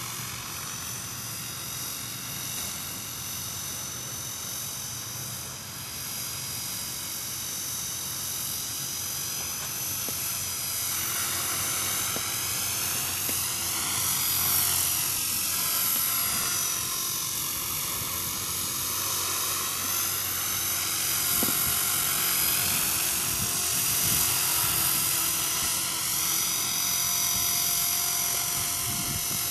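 Electric RC helicopter in flight: the high whine of its brushless outrunner motor and rotor. The pitch sweeps up and down several times as it manoeuvres, and it grows louder through the middle.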